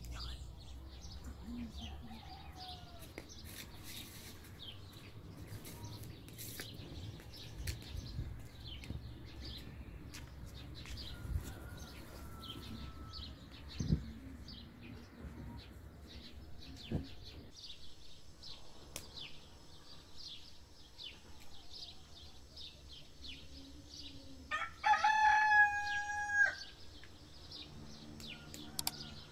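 A rooster crows once near the end, loud and clear, for about two seconds. Small birds chirp many times throughout.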